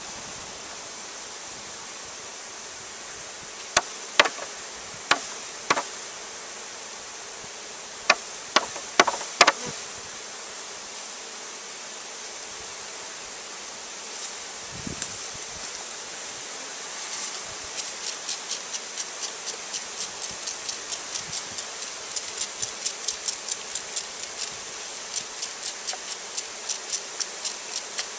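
Several sharp knocks, then from about halfway through a steady run of quick taps, about three to four a second, as a package of bees is banged and shaken out into a top bar hive. A steady high hiss lies under it all.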